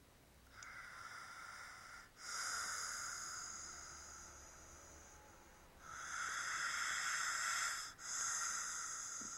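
A sleeping man snoring with a hissing, wheezy breath and no rumble. There are two breath cycles: a short breath that runs straight into a longer one that slowly fades, then the same again.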